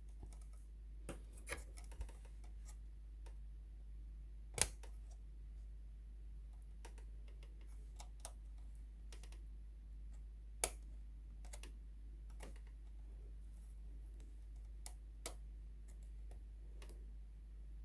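Scattered small plastic clicks and taps of flat ribbon cables being handled and pressed into their connectors on a sewing machine's circuit board, two sharper clicks about four and a half and ten and a half seconds in, over a steady low hum.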